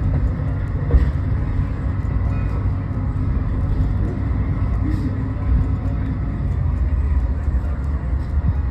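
Steady low rumble heard from inside a moving Budd RDC rail diesel car as it runs along the track, with a brief knock about a second in.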